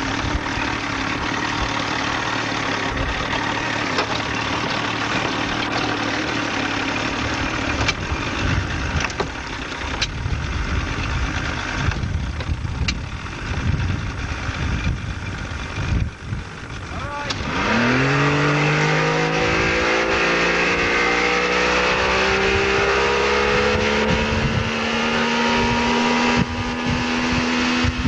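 Motorboat engine idling low, then about two thirds of the way through it is opened up: its pitch climbs quickly and settles into a loud, steady high-revving run as the boat pulls a water skier up out of the water.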